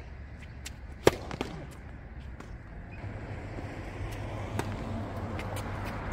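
Tennis ball impacts on an outdoor hard court: a sharp knock about a second in, the loudest, as the server readies the ball, then the serve struck about four and a half seconds in. Fainter ball pops from other courts come and go throughout.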